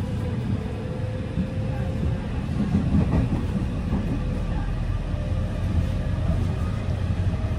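Local electric train heard from inside the carriage as it pulls out and gathers speed: a steady low rumble of the running gear, with a faint motor whine that sits a little higher in pitch later on.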